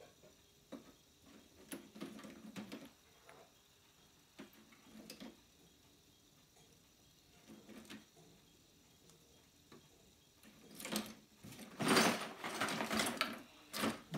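Scattered light clicks and small knocks, with a louder run of clicking and rustling near the end.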